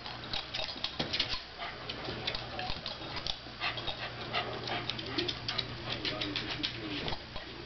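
A dog and a cat scuffling: a dense run of quick, irregular clicks and scuffs from their paws and claws, with the dog's own sounds.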